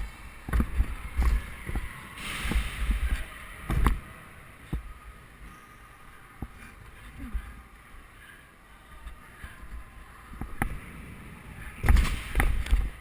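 Low rumbling buffets with a scatter of sharp knocks, busy for the first four seconds and again near the end, quieter in between.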